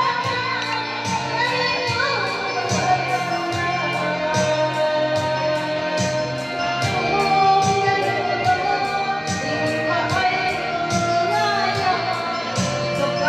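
Woman singing karaoke into a microphone over a backing track with a steady beat.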